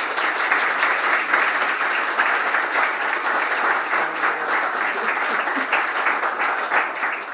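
Audience applauding steadily as the dignitary enters, tailing off near the end.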